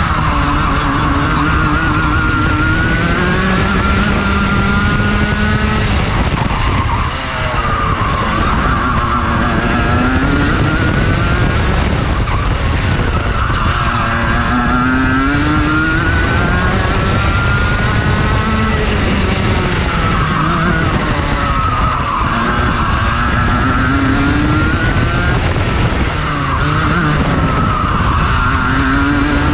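Junior Rotax kart's 125cc two-stroke engine at racing speed, heard from on board: its pitch climbs steadily along each straight and drops away for each corner, over and over through the lap.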